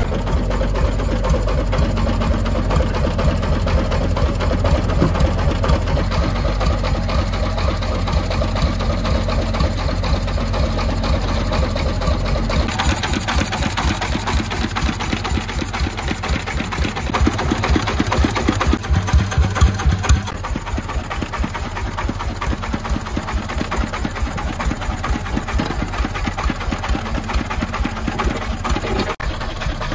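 Single-cylinder 24 hp diesel engine of a công nông three-wheeled truck idling with a steady, rapid chugging. About a third of the way in, the separate firing beats become more distinct.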